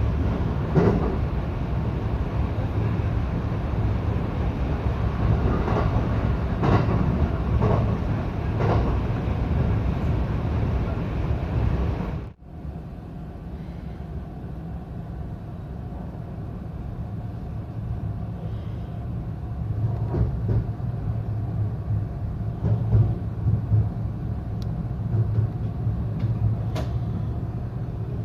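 Local electric train running on the rails, heard from inside the carriage: a steady rumble with scattered clicks of the wheels. About twelve seconds in, the sound breaks off abruptly and comes back quieter and steadier, with a few sharp clicks later on.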